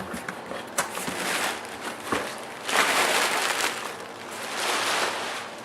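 A cardboard shipping box being opened and its packing handled: a few bursts of rustling and scraping with scattered clicks.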